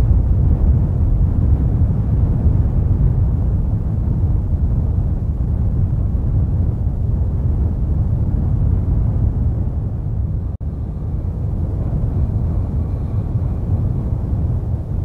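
Steady deep rumbling noise with no distinct tone, which cuts out for an instant about ten and a half seconds in.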